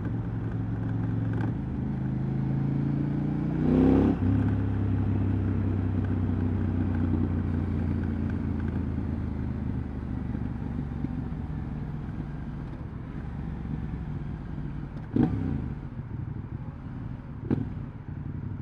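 KTM 790 Adventure's parallel-twin engine running through its exhaust. Its pitch rises to a loud rev about four seconds in, it then runs steadily, and two brief throttle blips come near the end.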